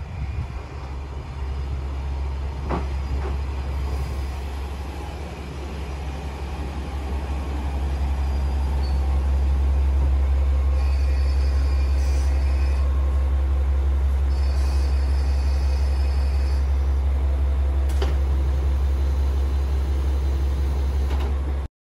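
KiHa 40-series diesel railcar pulling into the platform and stopping, its diesel engine running with a steady low rumble that grows louder as it draws alongside. Short high-pitched squeals come twice about halfway through as it comes to a halt.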